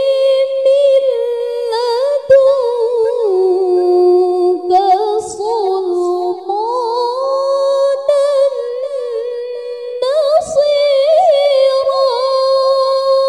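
A young woman's high, clear voice reciting the Qur'an in a melodic, drawn-out style into a microphone: long held notes with wavering ornaments, dipping lower through the middle and climbing back. There are two brief breaks about five and ten seconds in, and the long phrase ends at the close.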